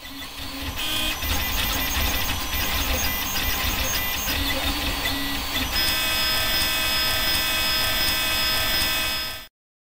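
3D printer running a print: stepper motors whining as the print head and bed move, with tones that shift from move to move over a low rumble. About six seconds in it settles into a steady set of tones, then cuts off suddenly near the end.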